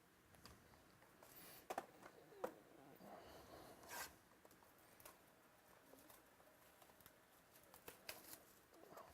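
Near silence, broken by faint rustling and a handful of soft clicks from trading cards and their packaging being handled, the sharpest about two seconds in, at four seconds and near the end.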